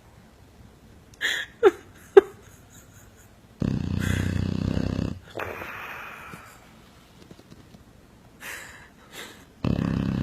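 Sleeping dog snoring: a few short squeaky snuffles, then a loud, low, rattling snore breath, a softer breath out, and another loud snore starting near the end.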